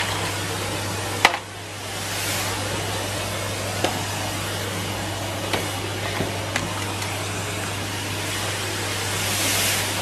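Numatic Henry tub vacuum cleaner running steadily, its motor hum under the hiss of air through the hose. A sharp knock comes a little over a second in, and the suction noise briefly drops, then comes back. Scattered small clicks follow, and the hiss swells louder near the end.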